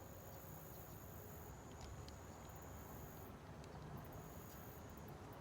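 Faint night insects trilling: a steady high-pitched note, with a thinner, higher buzz that stops and starts, and a few faint ticks.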